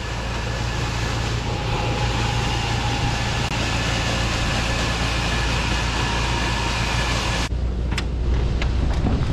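A vehicle engine running steadily, a low hum under a broad hiss. About seven and a half seconds in, the hiss drops away suddenly and a few sharp clicks follow.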